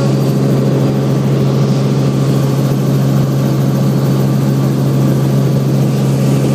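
Helicopter in flight: a loud, steady drone of engine and rotor with a strong low hum.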